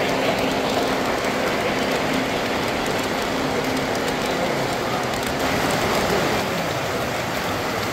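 Three-rail O-gauge model train cars rolling past on the layout's track: a steady, even rolling rattle with a faint motor hum beneath.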